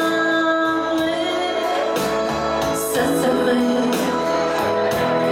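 Live pop song played on an electronic keyboard over a steady beat of about one hit a second, with a woman singing into a handheld microphone.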